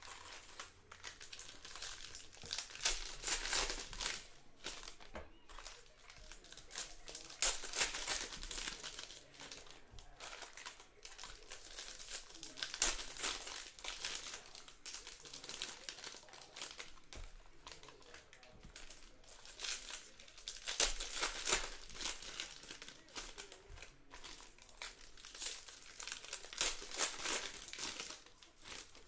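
Foil wrappers of 2020 Bowman Draft Jumbo baseball card packs being torn open and crinkled by hand, in repeated bursts of rustling.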